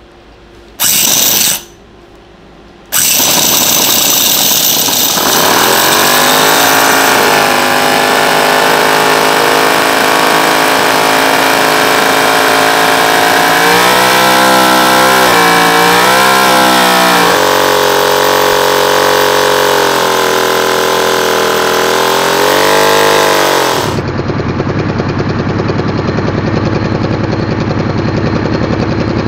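Toyan FS-V800 28cc nitro four-stroke V8 model engine. After a short loud burst about a second in, it fires at about three seconds and runs with a fast, buzzy exhaust note. It is blipped higher and back down twice, once around the middle and once shortly before the sound turns rougher and duller near the end.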